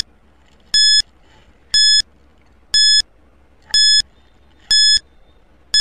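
Quiz countdown timer sound effect: short, identical high electronic beeps, one each second as the clock counts down.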